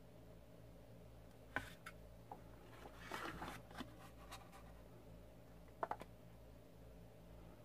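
Quiet kitchen handling sounds from filling cupcake cups: a few light clicks and knocks as paper baking cups are set down and the scoop touches the stainless steel mixing bowl, with a brief paper rustle in the middle, over a faint steady low hum.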